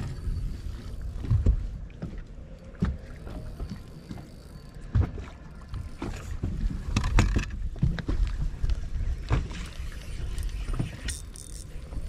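Irregular knocks and thumps of people and gear moving about on a fishing boat's deck, over a low rumble.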